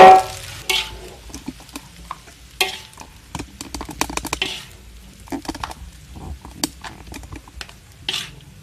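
A metal spatula strikes the wok once loudly right at the start, leaving a brief ringing tone. Irregular scraping and clinking follow as fried rice is stirred and scooped in the wok.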